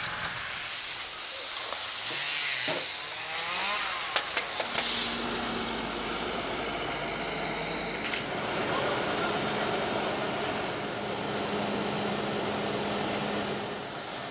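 Tractor engine running, its pitch sweeping down and back up a few seconds in, then settling to a steady hum. There are a few sharp knocks about four seconds in, and a rustling hiss from leafy birch branches being handled on the trailer.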